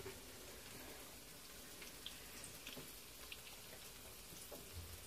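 Faint crackle of egg rolls frying in hot oil, with scattered small pops.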